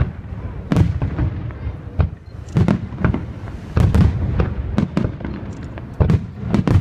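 Fireworks display: a rapid string of sharp bangs from bursting shells, about two a second, over a continuous low rumble.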